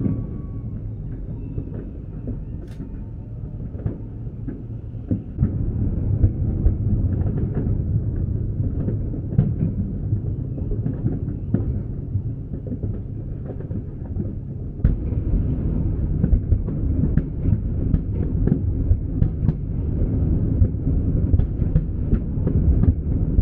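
Fireworks exploding: a continuous low rumble of booms packed with many sharp cracks, growing louder about six seconds in and again about fifteen seconds in.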